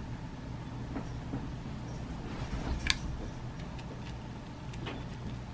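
A few light clicks of small lead airgun pellets being handled and picked out of their metal tin, with one sharper click about three seconds in, over a steady low hum.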